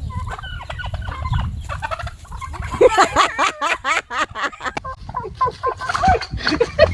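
Turkey calling: scattered short calls, then a rapid rolling run of gobbling about three seconds in, with more calls near the end.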